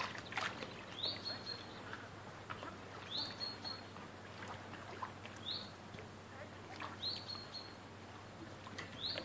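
A bird calling five times, about every two seconds, each call a quick upward slur ending in a short, high, level whistle.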